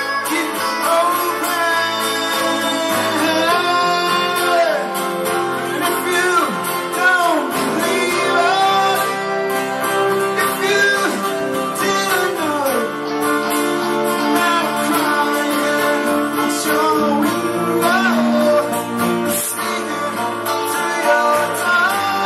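Live band playing: an electric guitar and two strummed acoustic guitars, with a melody line that bends and slides in pitch.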